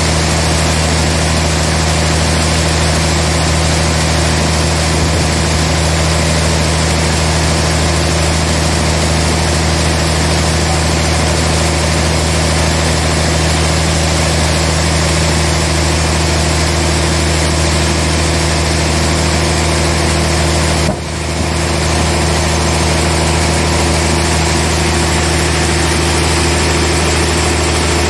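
Large sawmill band saw running steadily with a deep hum as it saws through a trembesi (rain tree) log. The sound dips briefly about three-quarters of the way through.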